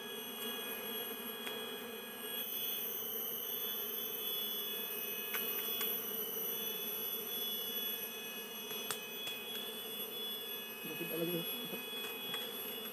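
Steady hum of a disturbed Asian honeybee (Apis cerana) colony buzzing around its opened nest, with thin, steady high tones above it and a few faint clicks.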